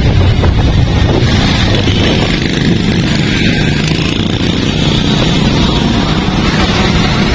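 Heavy rain with strong wind, the gusts buffeting the microphone in a loud, steady rumble with rain hiss over it.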